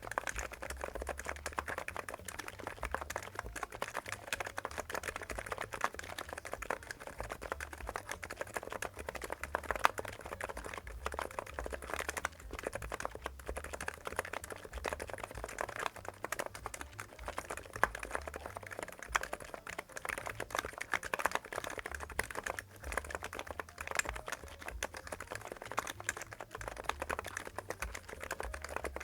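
Continuous fast typing on a NIZ X99 keyboard with electrostatic capacitive non-contact (EC) switches of a silenced design: a dense, unbroken stream of key strokes.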